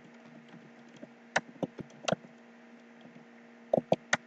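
Computer keyboard keystrokes: a few separate key presses around the middle, then a quick run of three near the end, as a short command is typed and entered. A faint steady hum lies underneath.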